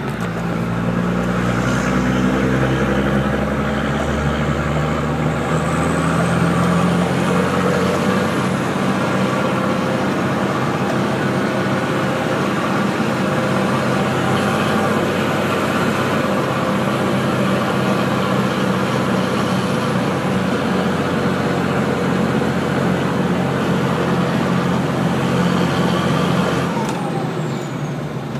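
Nissan TD42 4.2-litre inline-six diesel, turbocharged with a straight-through 3-inch exhaust, pulling hard under load up a hill, heard from inside the cab. The revs rise over the first few seconds and then hold steady, with a faint high whistle over the engine at times. Near the end the throttle eases and the low drone drops away.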